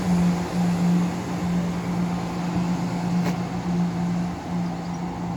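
Class 170 Turbostar diesel multiple unit pulling away under hard power, its underfloor diesel engines giving a steady deep drone that slowly fades as the train draws away.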